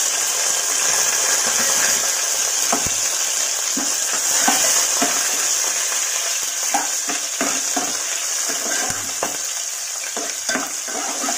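Tempering of cumin, mustard seeds, green chillies and curry leaves sizzling steadily in hot oil in a metal pot. A spoon stirs it, with scattered sharp clicks from about three seconds in.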